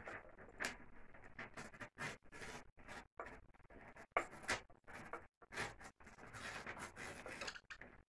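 A sheet of paper being torn down to a smaller size, crinkling and rustling in short, irregular bursts.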